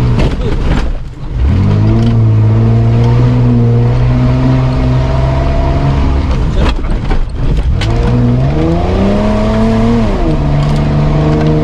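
Mitsubishi Pajero's engine working hard off-road, heard from inside the cab. The revs dip about a second in, hold steady, then climb and drop back near the end, with a few sharp knocks in the middle.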